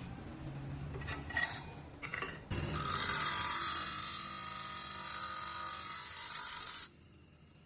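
A few metallic clinks as a steel coil spring's hook end is bent with a lever bar in a vise, then, about two and a half seconds in, the spring's end ground against a spinning grinding wheel: a loud, steady grinding hiss that stops abruptly near the end.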